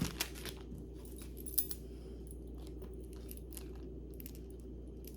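Light scattered clicks and clinks of jewelry being handled, a metal chain knocking against other pieces, with one sharper click about one and a half seconds in, over a low steady hum.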